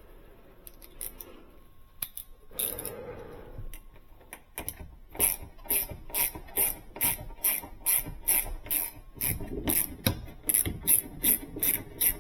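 A few seconds of tool handling, then a hand ratchet clicking in a steady rhythm of about three to four strokes a second as a door-hinge screw is worked out.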